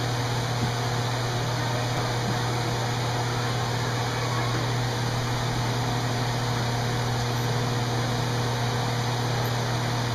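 A steady low hum over an even hiss, unchanging throughout, like a fan or motor running.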